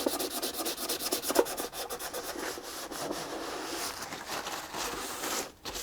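Fine 3600-grit micromesh rubbed over a violin's top, dampened with water, in quick back-and-forth strokes to clean off dirt; the scratching stops briefly near the end.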